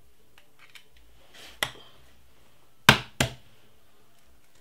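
Eggs being cracked against the rim of a bowl: a single sharp knock about a second and a half in, then two louder sharp knocks in quick succession near the three-second mark.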